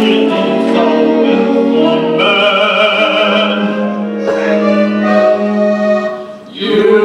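Musical theatre singing: male voices holding long notes of a show tune over musical accompaniment. The sound dips briefly near the end, then a new loud held chord begins.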